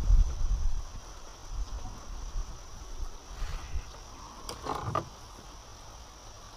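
Steady high-pitched buzz of insects in the riverside vegetation, with low rumbling in the first second and a few short clicks about five seconds in.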